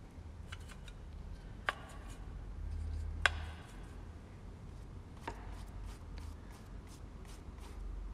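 A paintbrush and painting gear being handled: scattered light ticks and three sharper taps, about a second and a half apart, the loudest near the middle, over a low steady hum.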